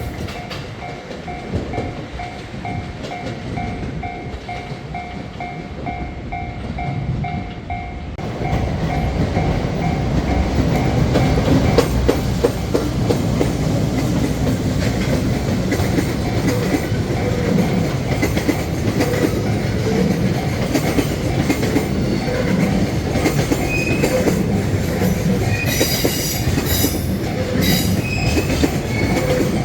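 Japanese level-crossing warning bell ringing in a steady repeating beat, then a train passing close by from about eight seconds in, its running noise much louder than the bell, which rings on beneath it.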